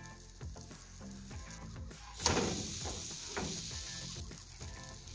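A banana-and-oat pancake turned over with a spatula lands in the hot pan with a sharp tap about two seconds in, then sizzles loudly and fades over a couple of seconds. Soft background music runs underneath.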